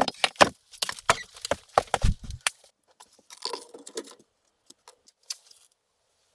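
A quick run of sharp knocks and clinks, as of objects being handled, for about two and a half seconds. A few fainter clicks follow, then it goes quiet near the end.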